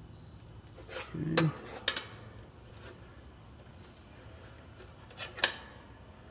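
A few short clicks and rattles of hands handling plastic wire nuts, thin electrical wires and a metal nut driver, the loudest about a second and a half in and another near five and a half seconds in.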